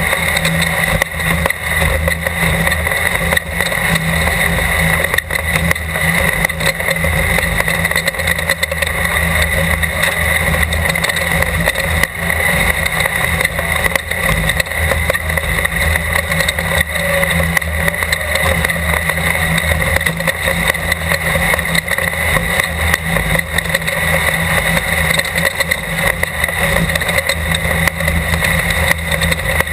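Class 12 off-road desert race car's engine running steadily at speed, a loud continuous drone with a low rumble underneath.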